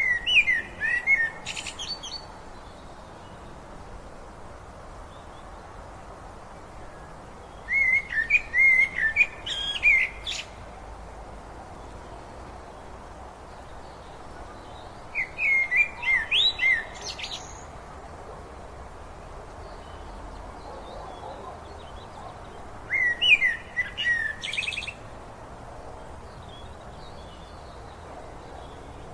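A songbird singing four short, chirping phrases with trills at the end, about every seven to eight seconds, over the steady rush of a river.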